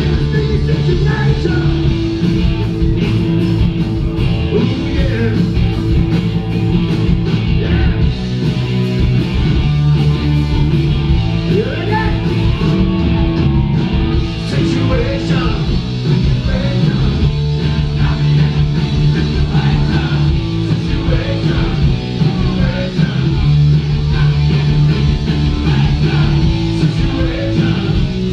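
Punk rock band playing live: electric guitars, bass and drums, with a singer.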